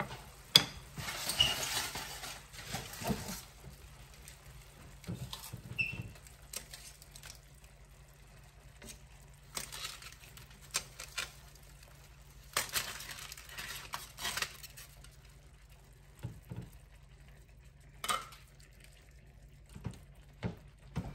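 Intermittent clinks and scrapes of a cooking utensil against a frying pan as chicken pieces are put back in and moved around, with quiet gaps between, over a faint steady low hum.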